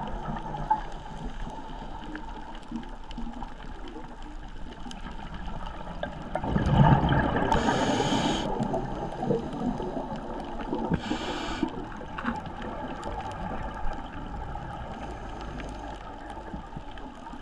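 Scuba diver breathing through a regulator underwater: a gurgling rush of exhaled bubbles about six seconds in, and short hisses of inhaled air about eight and eleven seconds in. Faint scattered clicks of reef crackle run underneath.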